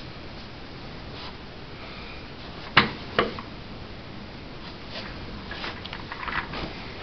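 White athletic tape being handled: two sharp snaps about three seconds in, then a run of crackling near the end as tape is peeled off the roll.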